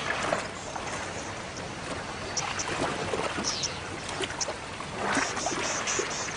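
Water sloshing and splashing as hippos wade and shove through a shallow, muddy river, with a quick run of high chirps, about four a second, near the end.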